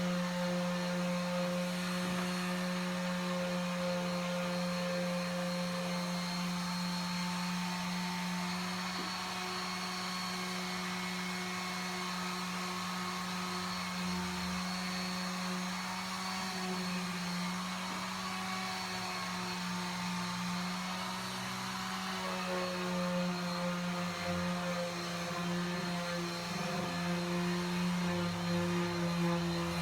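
Electric power sander running steadily, a constant motor hum under a hiss of abrasive on paint, flattening the paintwork between coats on marine plywood.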